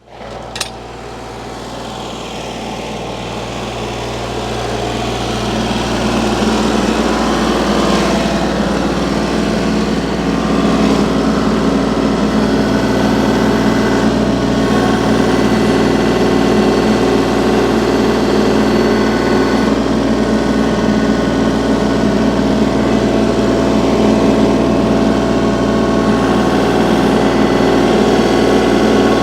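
An engine running steadily, building up over the first several seconds and then holding a constant level.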